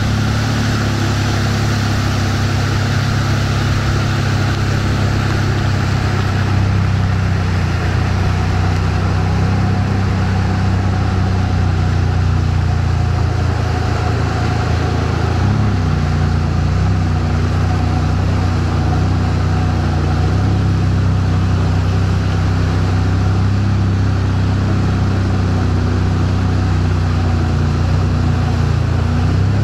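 Speedboat engine running steadily at speed while towing a banana boat, over the rush of its churning wake. The engine note shifts slightly about halfway through.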